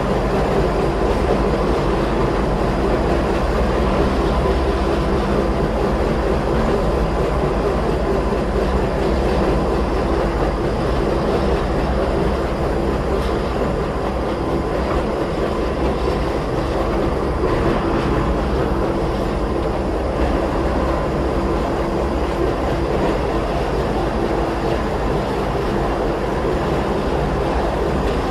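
Inside a Gornergrat Bahn electric rack-railway car climbing uphill: steady running noise of the train, with a constant hum and a faint high whine over the clatter of the wheels.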